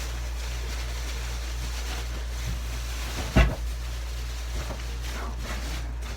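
A single sharp knock a little past halfway, over a steady low hum, followed by a few faint scraping sounds.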